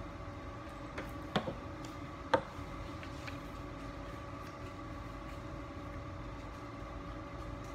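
Steady room hum with a few sharp taps and clicks from paper strips being rolled into loops and handled on a tabletop, the loudest tap about two and a half seconds in.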